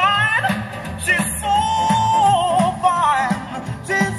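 A song with a singer's voice, including long held, wavering notes, over a steady beat, played through a PA loudspeaker.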